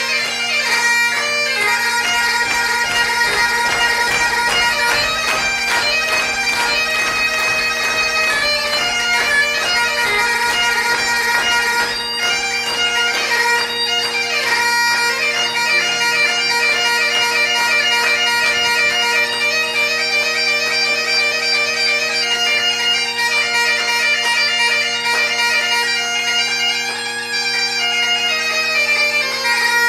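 Great Highland bagpipe played solo: the three drones sound a steady unchanging bass beneath the chanter, which plays a quickly moving, ornamented melody.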